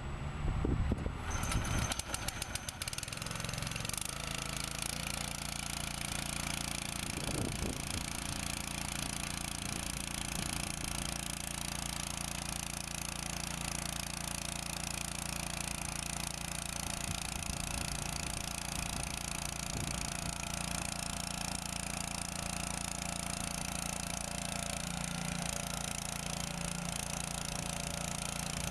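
10 hp petrol engine of a hydraulic earth auger starting about a second in, then running steadily. Its pitch shifts slightly near the end.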